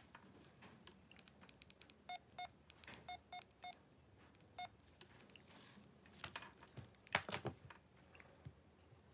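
Oppo Neo 9 smartphone's speaker giving six short electronic beeps in an uneven rhythm, each the same pitch, between about two and five seconds in. Then the phone is tapped and handled on the mat, a run of clicks and knocks, loudest about seven seconds in.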